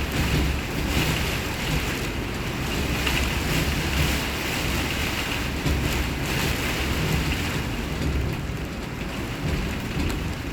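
Speedboat running over choppy water: a steady engine rumble under the rush of water and spray, with wind buffeting the microphone.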